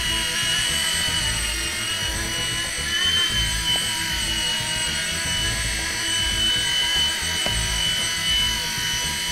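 Blade mSR micro RC helicopter's electric motors whining steadily at hover speed, with the spinning rotor blades. The pitch has already risen as the rotor spun up and then holds level while it flies.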